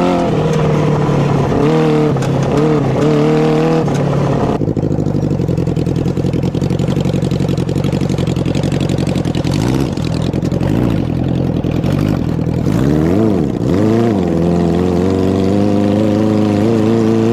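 650cc motorcycle engine in a modified lawnmower revving up and down, then dropping to a lower, rougher steady run for several seconds. Near the end it gives a quick blip and then climbs slowly in pitch as it pulls away.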